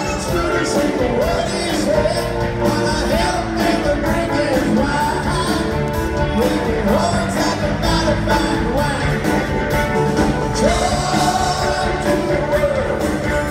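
A live rock band playing a song, with a male lead vocal over drums, electric guitars, bass and keyboards, heard from within the audience.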